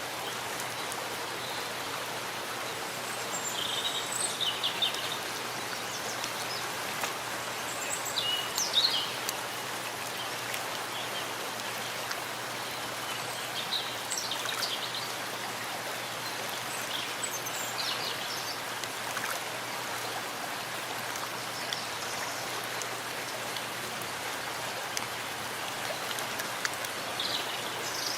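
Steady rain falling in a forest, an even rushing hiss. Short high bird calls cut through it a few times, the loudest about nine seconds in.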